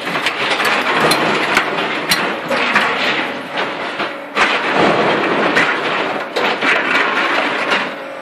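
Concrete paving-block machine running, a loud, steady rattling clatter with scattered sharp knocks; the noise dips briefly about four seconds in.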